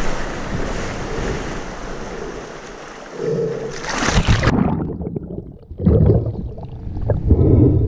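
Sea water sloshing and rushing over an action camera's microphone at the surface, then a splash about four seconds in as the camera goes under. After that the sound turns suddenly muffled, with low underwater gurgles and thumps.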